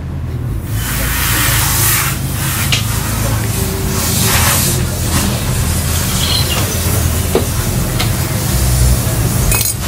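A loud hiss of rushing compressed air, swelling about half a second in and surging several times, over a steady low hum.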